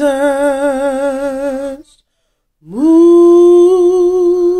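A woman singing unaccompanied, holding a long note with vibrato that stops about two seconds in. After a brief silence she slides up into a new long held note, also with vibrato.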